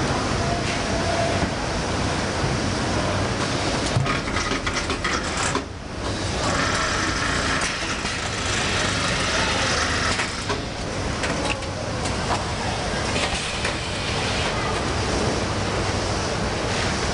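Automatic pet-food bag-packing machine running: steady mechanical noise, with a burst of rattling clicks about four seconds in and a stretch of hissing a little after.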